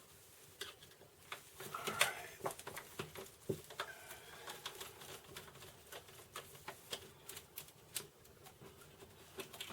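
Scattered small clicks and taps of a hand screwdriver and its screws being worked to remove an old computer power supply from its mounting, with a sharper click about two seconds in.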